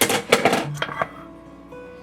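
Background music with plucked guitar notes. In the first second a quick cluster of loud clattering knocks sounds over it.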